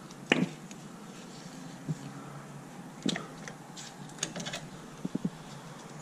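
Short sharp clicks and taps of hydraulic quick-connect couplers being worked loose and handled by gloved hands at a Kubota B2650 tractor's hydraulic outlets. The loudest click comes just after the start, with a few more scattered through.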